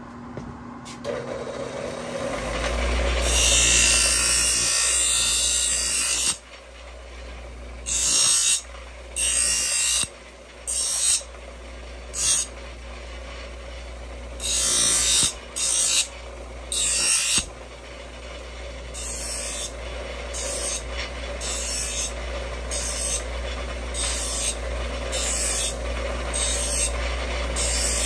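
Bench grinder starts up about a second in and runs with a steady hum while a small piece of sheet metal is pressed against the wheel: first one long grind of about three seconds, then a series of short grinds of under a second each, coming more often near the end.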